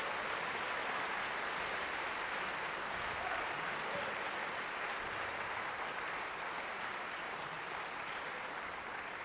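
Theatre audience applauding steadily for a ballerina's bow, slowly tapering off.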